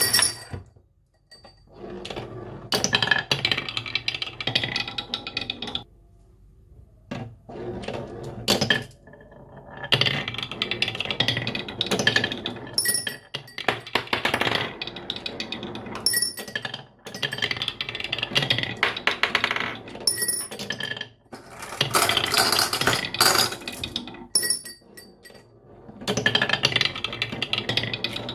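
Marbles rolling and clattering down a marble run, dense runs of clicks and clinks in stretches of a few seconds with short pauses between.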